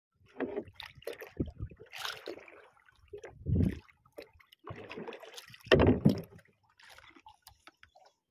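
Water sloshing and lapping against the hull of a small outrigger boat, irregular splashes with two louder low thuds about three and a half and six seconds in.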